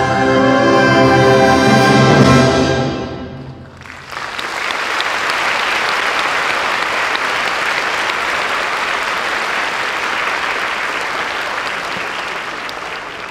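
A concert wind band of brass, woodwinds and percussion holds a loud final chord that dies away about three seconds in. The audience then applauds steadily, the applause slowly fading near the end.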